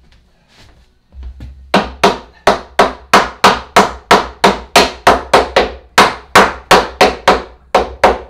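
Claw hammer striking a timber stair stringer, knocking it into place. A rapid, even run of sharp blows, about three a second, starts a little under two seconds in, with a couple of brief pauses.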